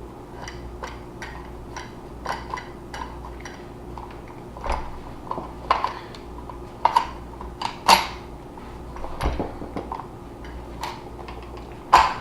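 Irregular metal clicks, clinks and knocks of a short barrel being fitted onto a Mossberg 500 shotgun's receiver and worked into place, with a few louder knocks in the second half and one near the end.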